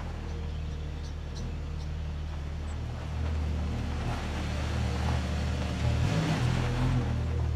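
A four-wheel drive's engine running as it drives slowly over loose crushed rock, packing the rocks down, under background music.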